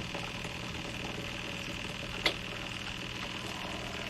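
Honda Helix scooter's single-cylinder engine idling steadily, with one sharp click a little after halfway.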